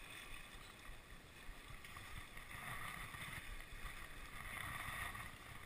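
Faint steady rush of a stream's riffle running over rocks, a little louder from about two seconds in, with low wind rumble on the microphone.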